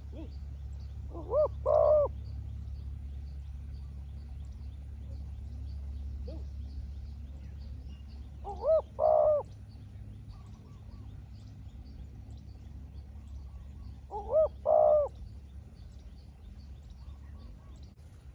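Spotted dove cooing: three loud phrases about six seconds apart, each a short coo followed by a longer wavering double coo. Fainter answering coos come in between, from a second dove.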